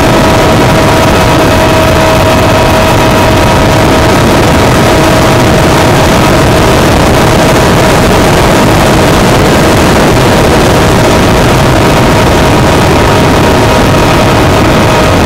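Multiplex EasyStar model plane's electric pusher motor and propeller running at a steady pitch, heard from a camera on board the plane in flight, under heavy wind rush on the microphone.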